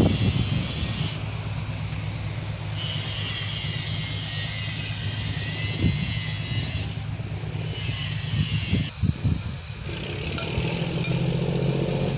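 Fishing-harbour ambience dominated by diesel engines running with a steady low hum. A high hiss cuts in and out several times, there are a few short knocks about nine seconds in, and the hum grows stronger near the end.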